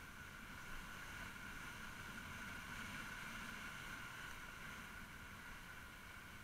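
Faint, steady riding noise of a motorbike on the move, wind and road rumble with a steady high whine running through it.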